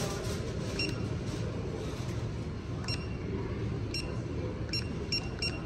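Keys being pressed on a card payment terminal, each press giving a short high beep. There are about six beeps, spaced unevenly and coming faster near the end, over a steady low background hum.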